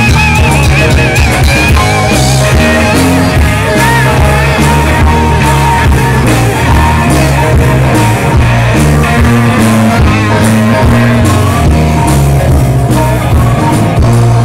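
Live blues-rock band playing loud: electric guitars, bass guitar and drum kit, with a lead line of held, wavering high notes over a steady beat.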